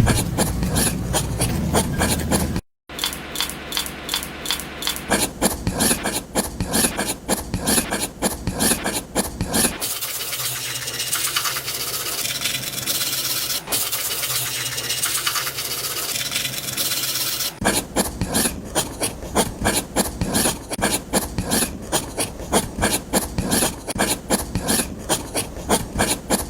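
Rapid repeated abrasive strokes on wood, like a file or sandpaper working small wooden parts, in several stretches. The middle stretch is a smoother, hissier rubbing.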